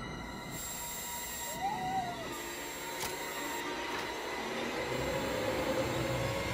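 Steady low droning noise from a film soundtrack, with faint steady tones running through it and a short wavering tone about two seconds in.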